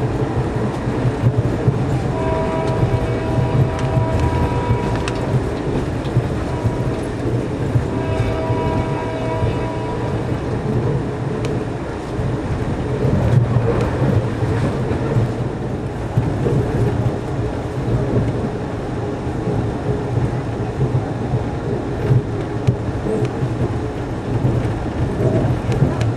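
Passenger coach running along the rails with a steady low rumble and occasional wheel clicks. Near the start the locomotive's horn, an EMD GP38-2's, sounds two long blasts a few seconds apart, heard from back in the coach.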